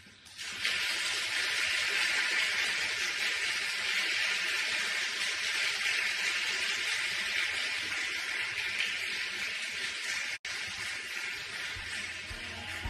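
Audience applause, a steady clapping that starts about half a second in and breaks off for an instant about ten seconds in.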